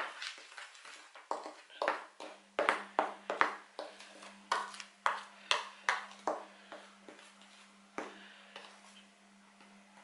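Metal spoon scraping and knocking against a plastic mixing bowl as dry flour is stirred, in irregular clicks several times a second that thin out after about seven seconds. A faint steady low hum sets in about two seconds in.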